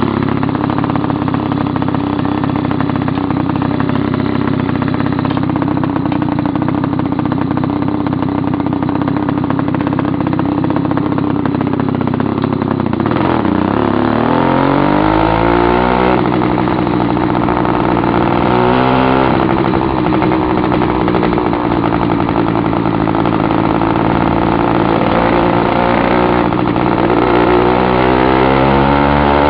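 Two-stroke China Girl kit engine on a motorized bicycle, running very loud with its muffler cap removed. It holds a steady note, dips and climbs back up about halfway through, and rises in pitch near the end as the bike gathers speed.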